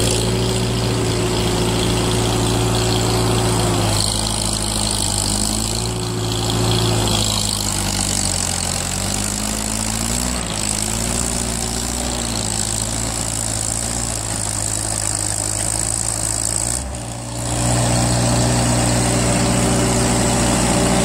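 1947 Farmall H's four-cylinder engine running throughout. For several seconds in the middle its note falls and wavers as the tractor lugs through deep mud. After a brief dip in level near the end it runs steady again at a higher pitch.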